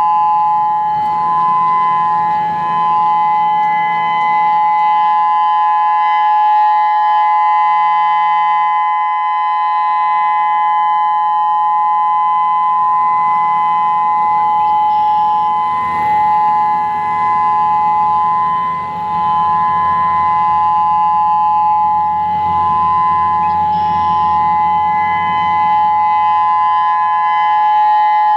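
Federal Signal EOWS 612 electronic warning siren sounding a loud, steady tone of two close pitches during a siren test. One set of its speaker drivers is run off a 200-watt stereo amplifier.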